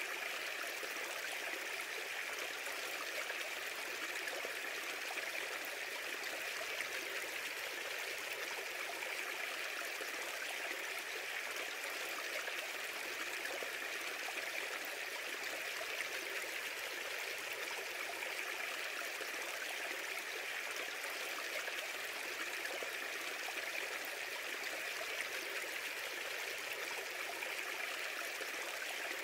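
Steady rushing of running water, like a stream, even and unbroken throughout.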